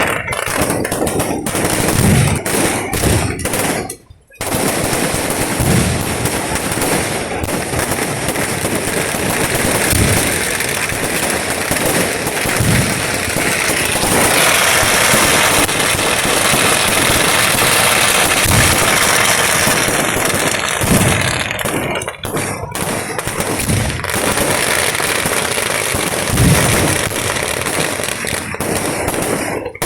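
Fireworks display: dense, continuous rapid-fire crackling like machine-gun fire, with heavier low booms every few seconds. The barrage breaks off briefly about four seconds in.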